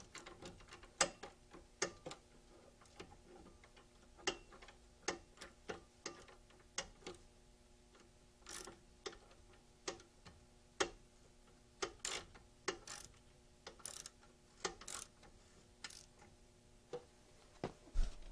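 Hand ratchet's pawl clicking sharply and irregularly, about one or two clicks a second, as it is worked back and forth tightening a brake caliper bridge mounting bolt. A faint steady hum runs underneath, and a low thud comes near the end.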